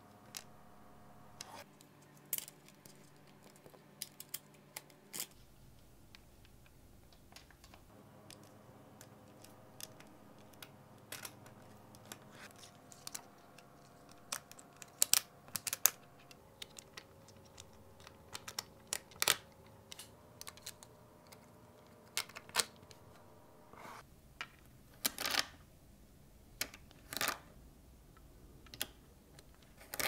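Small neodymium magnetic balls clicking and snapping against each other as fingers press them into a cube, in scattered sharp clicks of uneven loudness.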